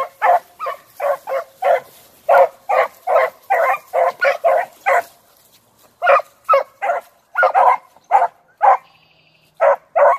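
Beagles giving tongue on a rabbit's scent: a run of short, evenly pitched barks, two or three a second, with a pause about five seconds in and again near the end.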